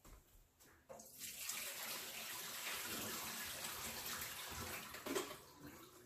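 Warm vinegar-and-water descaling solution poured out of an electric kettle into a sink, a steady rush of water starting about a second in and stopping about five seconds in.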